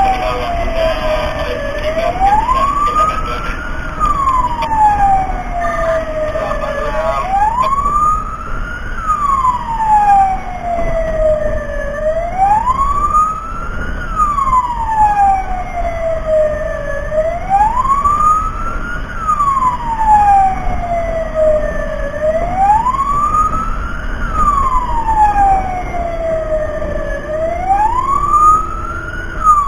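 Fire rescue truck's siren wailing, each wail rising over about two seconds and falling over about three, repeating about every five seconds, over a steady low rumble.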